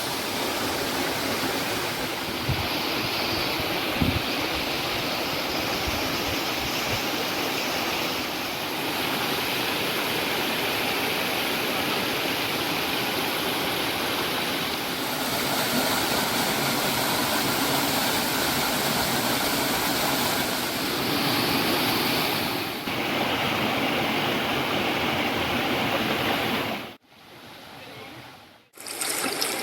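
Running water rushing steadily, in several spliced takes that change tone every few seconds, with a few light knocks a few seconds in. Near the end it drops much quieter for about two seconds.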